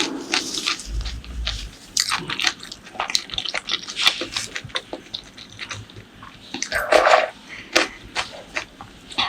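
Close-miked eating: wet chewing and biting with many short mouth clicks, and a louder wet stretch about seven seconds in.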